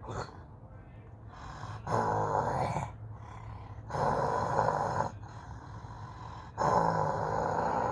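A person imitating a wolf's growl with their voice: three growls, the first two about a second each and the last about two seconds long.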